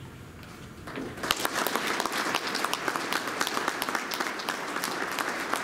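Audience applauding: many people's clapping breaks out about a second in and keeps going.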